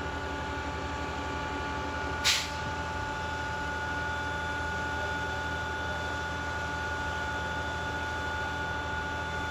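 Concrete pump truck's diesel engine and pump running steadily with a constant drone and whine. About two seconds in there is a brief, sharp hiss-like burst.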